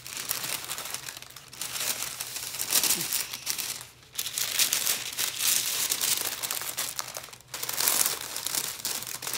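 Green parch paper (grease-proof wrapping paper) crinkling and rustling as it is folded and rolled around a paper-towel-wrapped fish. The crinkling runs on with two short breaks, about four seconds in and again about seven and a half seconds in.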